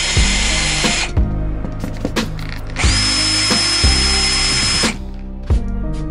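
Cordless drill driving screws down through a plywood campervan floor, in two runs of about two seconds each. The first stops about a second in, and the second starts near three seconds, its motor whine rising as it spins up. Background music with a beat plays underneath.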